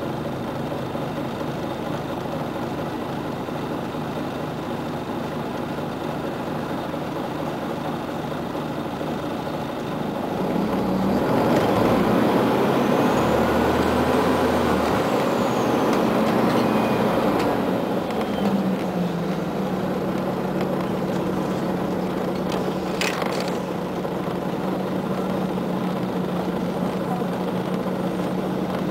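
Scania CN94UA OmniCity articulated city bus heard from inside: the engine idles steadily while stopped, then about ten seconds in the bus pulls away, the engine and drivetrain getting louder and rising in pitch as it accelerates, before settling into steady running.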